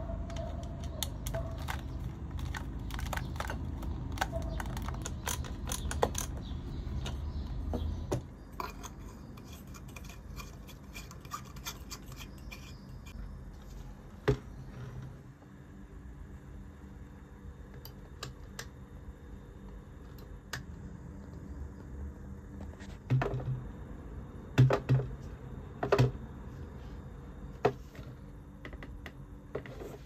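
Handling noise from a plastic joystick housing: scratching and quick small clicks with a low rumble while its back is screwed together, then quieter, with scattered clicks and a few louder clicks and knocks later on.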